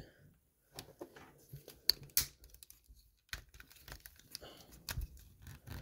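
Hard plastic parts of a Power Rangers Zord action figure clicking and knocking as it is handled and repositioned. The clicks are irregular and scattered, with the sharpest one about two seconds in.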